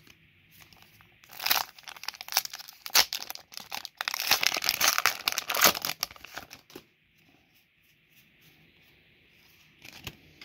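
Foil Pokémon booster pack wrapper being torn open and crinkled, in a run of rustling rips lasting about five seconds.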